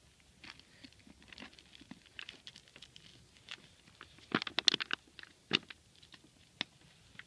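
Small plastic baggie of baking soda crinkling and crackling as fingers twist and fold it shut, with a burst of louder crinkles a little past halfway.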